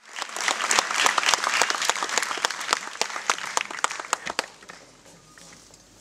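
Audience applauding, loud at first and dying away about four and a half seconds in.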